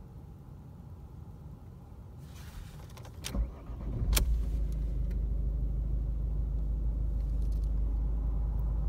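Ford Focus engine cranked and starting from cold about three and a half seconds in, catching with a jolt at about four seconds, then idling steadily at around 1000 rpm.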